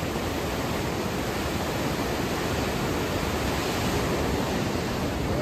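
Parvati River in spate: a fast, swollen mountain river rushing over boulders in white-water rapids, a steady, even rush of water.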